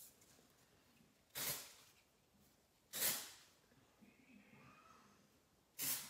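Aerosol can of hair product spraying onto hair in three short bursts, each a quick hiss that fades away, about a second and a half apart.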